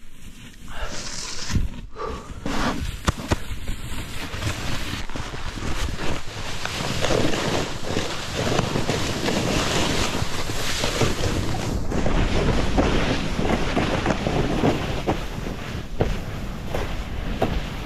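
A snowboard sliding and scraping through tracked powder on a downhill run, with wind rushing over the microphone. The noise builds about a second in and stays loud, with a few sharp knocks early on.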